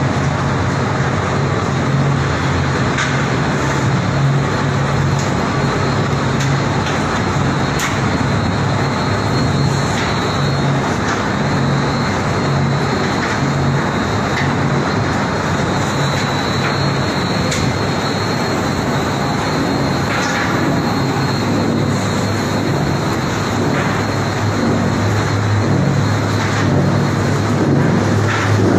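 Plastic film recycling washing line machinery running: a loud, steady industrial din with a low motor hum and a few short knocks.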